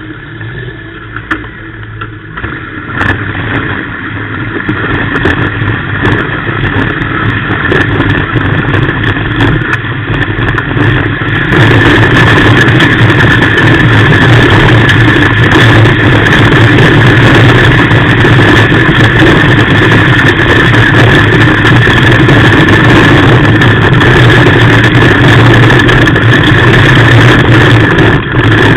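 Off-road rally car's engine running hard under load, heard loud from inside the cockpit, with many short clicks and rattles over it. It jumps louder and brighter about a third of the way in.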